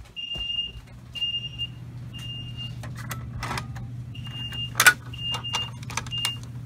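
Fire alarm sounder beeping a high tone in the temporal-3 evacuation pattern: three half-second beeps, a pause, then three more, over a low steady hum. In the middle come clicks and a sharp snap as a Fire-Lite pull station is opened to be reset.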